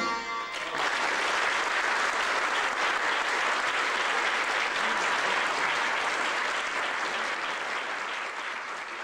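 The last ringing notes of a santur and tonbak duet die away within the first second, then an audience applauds steadily, the applause fading near the end.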